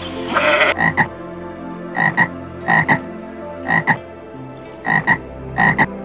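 A frog croaking in double notes, one pair about every second, six pairs in all. A brief hiss comes just before the first call.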